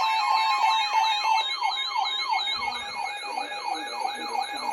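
Several weather alert radios sounding their alarms together: a siren-like wail sweeping up and down about three times a second, a faster high warble, and steady alert tones underneath, all loud.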